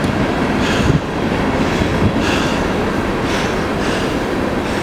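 Train passing: a steady rumble with faint clatter swelling about every second and a bit.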